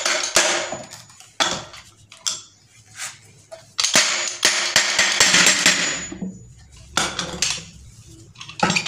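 Metal tools knocking and clanking on the metal body of a monoblock water pump as it is taken apart, in several separate bursts of clatter and scraping, the longest one in the middle, some with a brief metallic ring.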